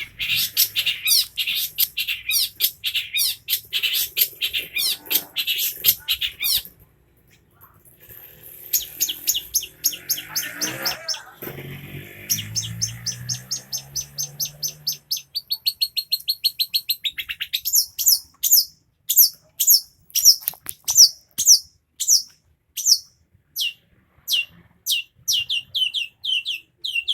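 Long-tailed shrike (cendet) singing hard: a fast, dense chatter of high notes, a short break, then a run of sharp downward-sweeping notes about two a second that space out near the end. A lower, rougher sound joins briefly about halfway through.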